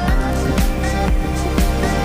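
Background music with a steady beat of about two beats a second, under sustained notes and short rising glides.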